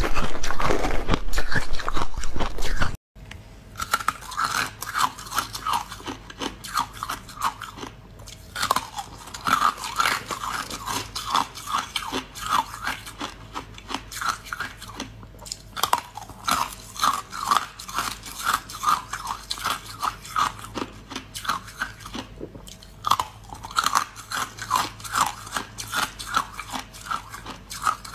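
Close-up crunching and chewing of ice, a person biting into frozen pieces and grinding them between the teeth. A louder, denser stretch cuts off abruptly about three seconds in, followed by quick runs of crunches with short pauses between them.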